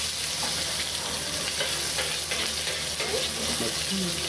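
Whole pomfret frying in hot oil in an iron wok, with a steady sizzle and a few light scrapes of a metal spatula against the fish and pan.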